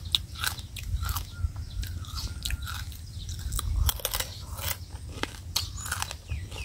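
Close-up chewing of crispy fried fish: irregular sharp crunches as the crisp pieces are bitten and chewed.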